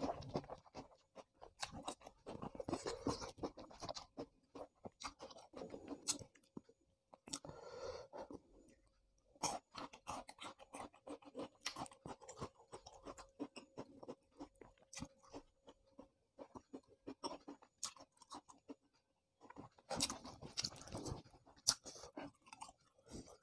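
Close-miked chewing of food by a person eating, with many short mouth clicks, in bouts separated by brief pauses.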